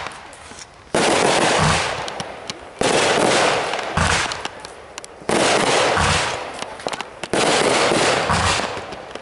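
Consumer aerial fireworks going off in a run of loud bangs about every two seconds. Each bang starts suddenly and trails off in crackle and hiss, with a low thud between them.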